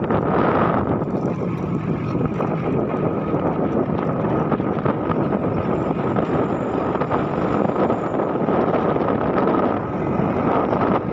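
Motor scooter riding steadily along a rough road, its engine running under a steady rush of wind buffeting the microphone.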